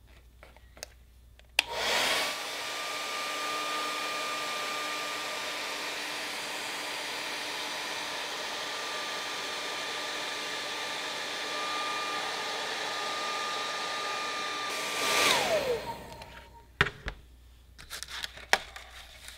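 Handheld hair dryer switched on with a click, then running steadily with a rush of air and a steady whine while it heats a freshly glued plastic seam. About fifteen seconds in it is switched off, and its whine falls in pitch as the motor runs down, followed by a few light knocks.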